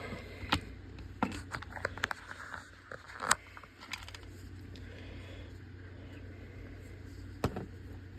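Scattered faint clicks and taps of a small handheld vlogging camera being handled while its menu buttons are pressed, over a low steady hum. There is a cluster of clicks in the first couple of seconds, a sharper one after about three seconds, and one more near the end.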